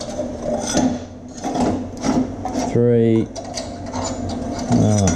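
A steel pick scraping and prying plasma-cut 3 mm steel gussets loose from the cut sheet on the plasma table, a run of short rasping scrapes with clicks and clinks as the steel pieces shift and come free.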